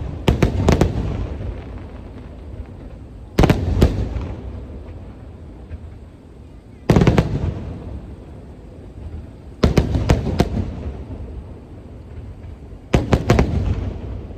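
Aerial fireworks display: five volleys of shell bursts about every three seconds, each a quick cluster of several sharp bangs followed by a fading low rumble.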